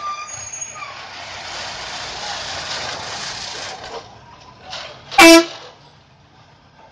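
Vehicle horns heard from inside a moving bus. A short horn note at the start, then a steady rush of road and wind noise for about three seconds, then one very loud, short horn blast about five seconds in.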